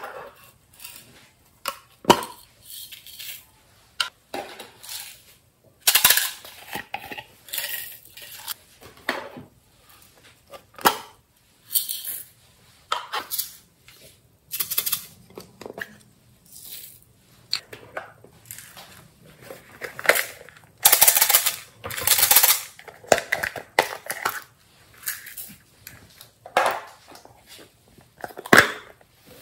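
Small plastic containers clicking and clattering as they are handled, tapped and set down, with a few longer rattling stretches as beads, sequins and glitter are shaken out into a glass dish.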